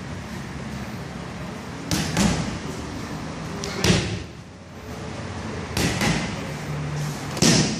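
Kicks and punches smacking into Thai pads during Muay Thai pad work: four sharp strikes about two seconds apart, some landing as quick doubles.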